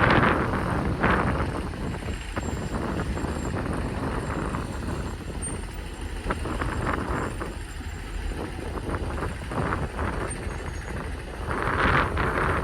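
Caterpillar excavator's diesel engine running under work, with wind buffeting the microphone; the noise swells briefly at the start and again near the end.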